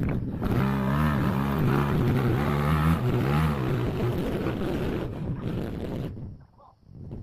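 Off-road motorcycle engine revving hard, its pitch rising and falling several times, then fading about six seconds in.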